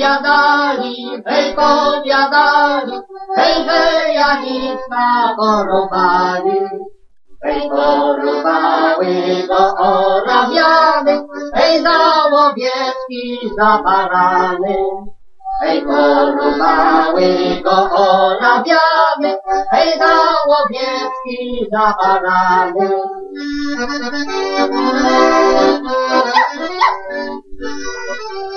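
A Polish highland folk song sung by a woman with accordion accompaniment, the voice phrased in lines with short breaks between them. About 23 seconds in the singing stops and the accordion plays on alone.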